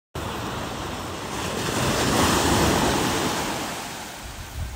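Ocean surf breaking and washing up a sandy beach, swelling to its loudest two to three seconds in and then easing off, with wind buffeting the microphone.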